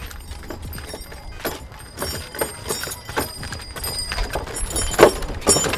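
Sound effect of a camel-drawn cart: a run of irregular knocks like hoofbeats, getting louder about two seconds in, with the sharpest knocks near the end.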